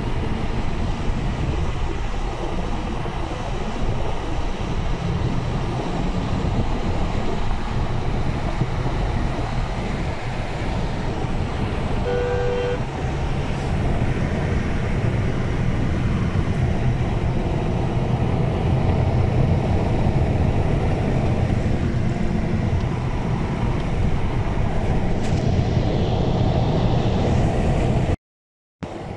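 Steady low outdoor rumble with a short vehicle horn toot about twelve seconds in. The sound cuts out briefly near the end.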